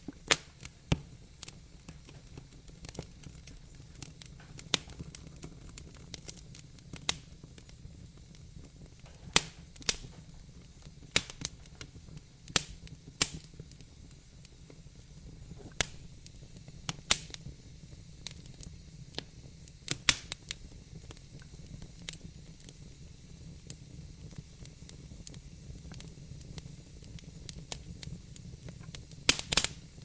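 Wood fire crackling in a fireplace: irregular sharp pops and snaps, a few much louder than the rest, over a low steady rumble.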